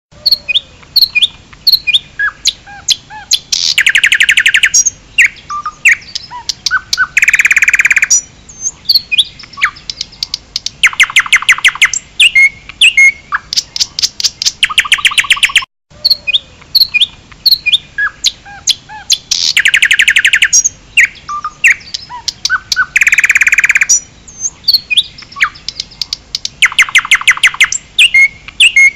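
Bird song: quick chirps and whistled notes broken by rapid trills and a harsh buzzy note. The same roughly sixteen-second recording plays twice, restarting after a short break near the middle.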